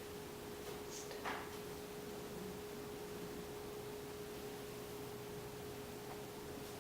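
Faint steady electrical hum at one pitch over low hiss, with a soft click about a second in.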